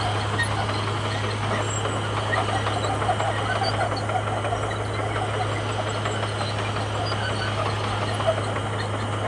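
Komatsu bulldozer's diesel engine running steadily, with an even low hum.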